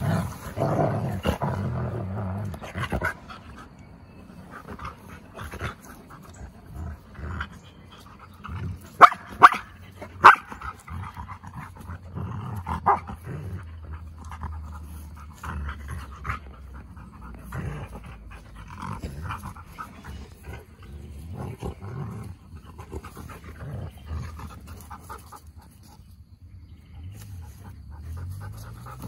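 A husky and wolfdog pups play-wrestling: low growling and panting, with a few sharp barks about nine to ten seconds in.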